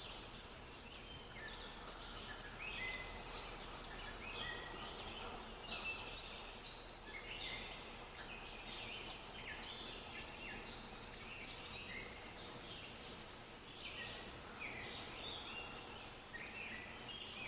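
Many small birds chirping and trilling continuously, a dense chorus of short quick calls, over a faint steady hiss.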